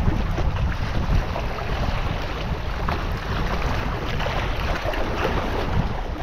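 Steady wind noise on the microphone, strongest in the low end, over the wash of sea waves.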